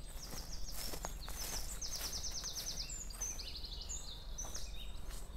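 A bird singing several quick phrases of high, rapidly repeated notes, one after another, with a few soft clicks over a steady low outdoor rumble.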